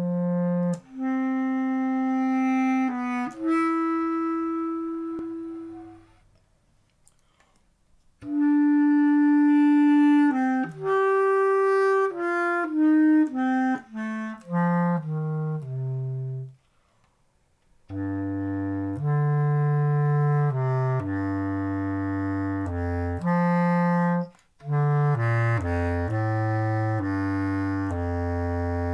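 Solo B-flat bass clarinet playing slow phrases of held notes, with two short pauses. The middle phrase ends in a falling run of notes, and the last phrase lies in the instrument's low register.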